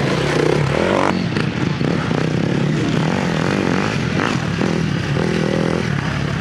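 Enduro dirt bike engines revving, the pitch rising and falling over a steady engine drone.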